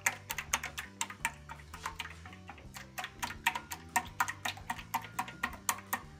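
Wire whisk beating eggs in a glass bowl, the wires clicking rapidly against the glass several times a second.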